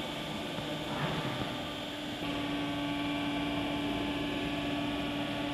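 Merseyrail electric train drawing slowly into an underground station platform: steady running noise and hum, with a steady tone that turns louder about two seconds in.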